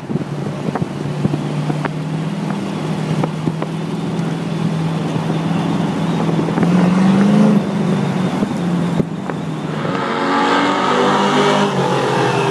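Race cars running laps on an oval track, their engines droning steadily, with a louder engine note joining about ten seconds in as a car comes near. Wind buffets the microphone.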